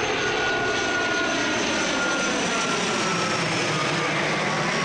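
Twin-engine turboprop airliner passing low overhead on its landing approach, its engines giving a steady rushing drone with a high whine that slowly drops in pitch as it goes by.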